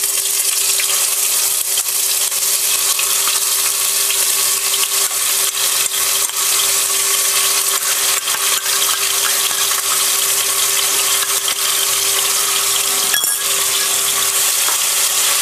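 Onion paste sizzling and crackling steadily in hot oil in a kadai, stirred with a wooden spatula near the end. A steady low hum runs underneath.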